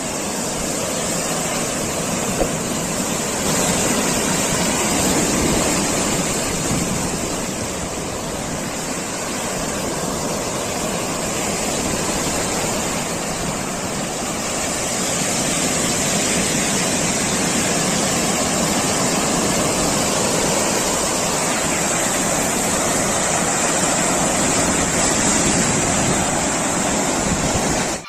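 Steady, dense rush of ocean surf and washing seawater, swelling and easing slowly.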